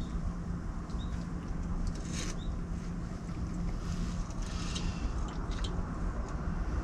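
Wind noise on the microphone with a low steady hum underneath, and a few faint clicks and rustles, about two seconds in and again near five seconds.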